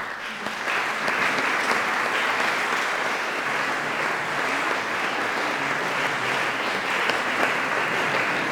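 Audience applauding with sustained clapping, swelling over the first second and then holding steady.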